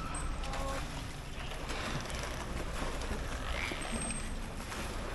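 Dolphins breathing at the pool surface: short breathy puffs from their blowholes, about two seconds in and again past three and a half seconds, over steady background noise.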